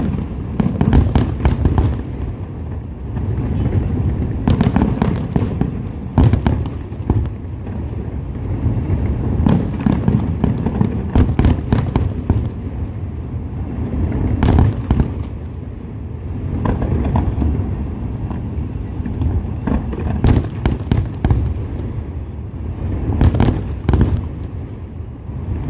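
Fireworks display: aerial shells bursting in a run of sharp bangs and crackles, often several in quick succession, every second or few seconds, over a continuous low rumble of booms.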